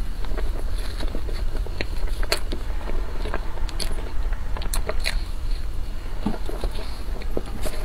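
Close-miked chewing of a mouthful of whipped-cream cake: soft, wet mouth clicks and smacks coming irregularly, over a steady low hum.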